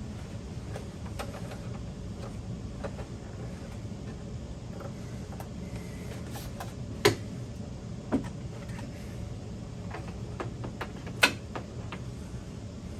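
Scattered light clicks and knocks from cables and plastic monitor parts being handled. Three sharper clicks come about seven, eight and eleven seconds in, over a steady low hum.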